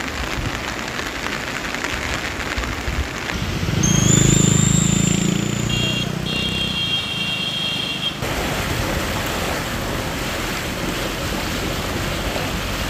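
Rushing floodwater with wind noise on the microphone. About four seconds in, a louder low rumble swells for a couple of seconds with a thin high tone over it, and the sound changes abruptly about eight seconds in.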